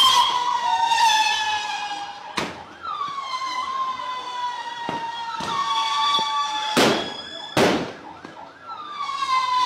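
A siren wailing in repeated cycles: each time the pitch rises quickly, then falls slowly over several seconds. Several sharp firecracker bangs cut across it, the loudest two close together about seven seconds in.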